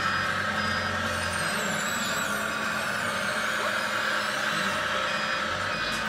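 Radio-controlled scale construction models at work, chiefly a model wheel loader: a steady whine of several tones from their electric drive motors and gearing.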